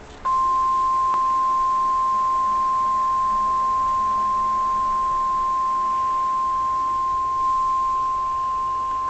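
NOAA Weather Radio warning alarm tone: one steady, loud single-pitch tone near 1 kHz, starting about a quarter second in and held without a break. It marks a new warning-level alert about to be broadcast.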